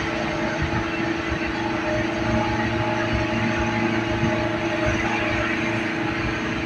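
Steady engine and tyre noise heard from inside a moving vehicle driving on a wet road, with a constant droning hum under it.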